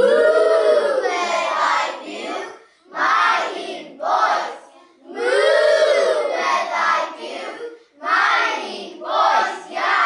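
A class of young children chanting lines of a Welsh story together in unison: several loud spoken-sung phrases with short pauses between them.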